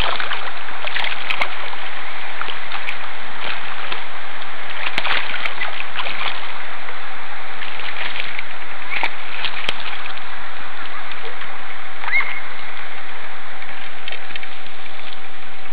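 Steady rushing of water at the bank, with scattered clicks and knocks from handling nearby.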